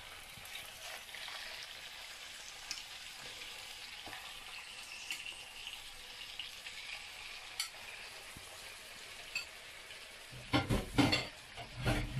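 Chicken thighs sizzling in hot oil in a nonstick frying pan: a steady hiss with a few faint ticks. Near the end there is a cluster of louder knocks.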